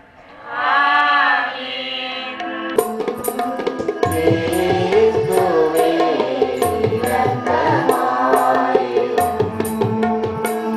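A short sung phrase, then from about three seconds in a tabla starts playing a steady rhythm under a church hymn with singing and a held melodic accompaniment.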